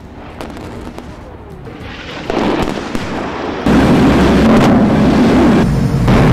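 Bomb explosions: a crackling blast that grows louder, jumping up sharply about two seconds in and again, louder still, near the middle, then staying loud.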